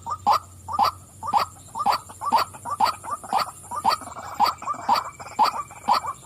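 White-breasted waterhen giving its repeated harsh 'wak-wak' calls in a steady rhythm, about two to three calls a second.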